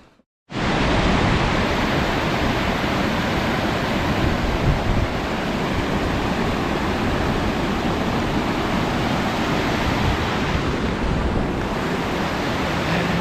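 Steady, loud rush of fast-flowing river water, as in rapids. It starts abruptly about half a second in and cuts off abruptly at the end.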